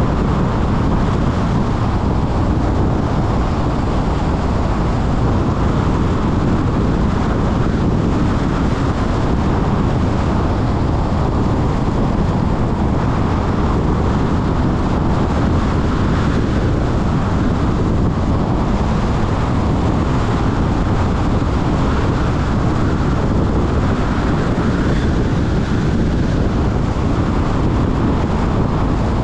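Steady road and wind noise of a car driving at speed, with tyre rumble and air rushing past.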